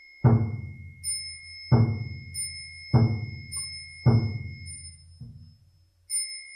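Buddhist morning-service percussion: a deep temple drum struck slowly, about once every 1.2 seconds, alternating with strikes on a small high-pitched bell whose ring carries on between strokes. The fifth drum stroke, near the end, is softer.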